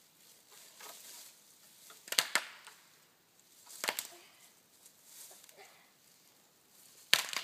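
A dead standing tree cracking at its base as it is pushed and rocked over: sharp wooden cracks about two seconds in, again near four seconds, and loudest near the end.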